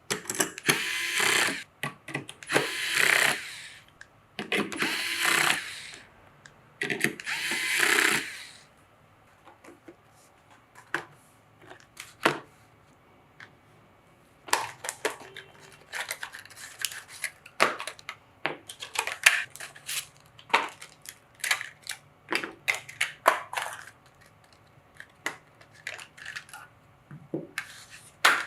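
Small electric screwdriver running in four short bursts of about a second each, driving screws. After a pause, a long run of light clicks and taps as parts are handled and fitted.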